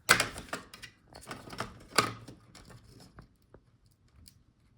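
Small clicks and rustling of parts and tools being handled inside an opened laptop while its speakers are unplugged and worked loose. There are two sharp clicks, one at the start and one about two seconds in.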